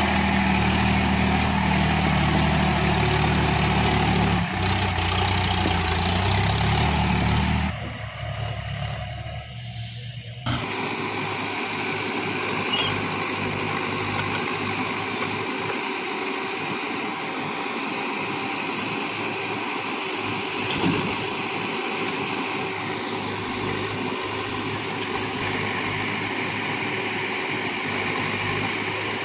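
Tractor diesel engine running steadily under load with a low, even drone. After a break about eight to ten seconds in, a steadier machinery noise follows from backhoe loader and tractor engines running as soil is loaded into a trolley, with one short knock.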